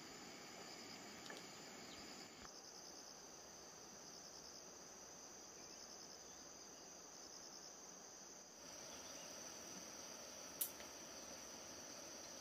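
Insects, crickets by the sound of it, chirping in a steady high-pitched chorus with rapid pulsing trills, faint in the background. A single sharp click about ten and a half seconds in.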